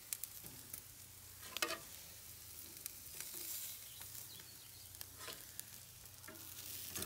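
Entrecote steaks sizzling faintly over a charcoal grill, with metal tongs clicking against the grill grate a few times as the steaks are lifted off; the sharpest click comes about a second and a half in.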